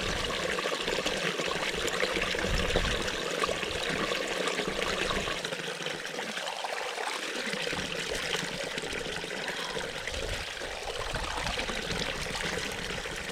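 A stream of running water, flowing and trickling steadily without a break.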